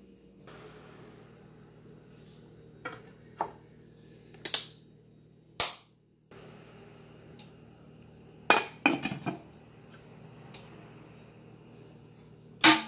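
Stainless steel bowl knocking and clinking against the metal inner pot of a Tatung electric rice cooker as it is set in, a handful of separate sharp metal knocks with a quick cluster about two-thirds of the way through. Near the end comes the loudest single sound, a sharp click as the cooker's switch lever is pressed down to start cooking.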